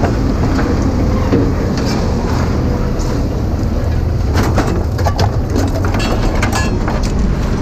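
Steady low vehicle rumble with scattered clicks and rattles, more of them after about four seconds in.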